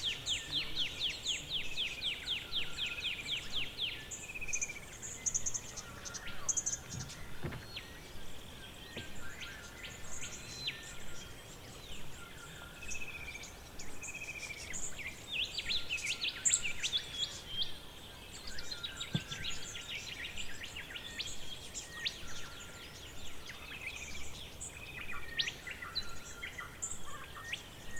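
Forest ambience of several birds singing and calling: a fast trill of repeated notes in the first few seconds, then scattered chirps, short whistled notes and further trills.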